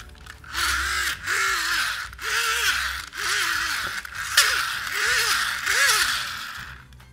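The gearbox of a toy monster truck whirring as its wheels are spun by hand. It makes about seven harsh, grinding whirs in a row, each rising and then falling in pitch.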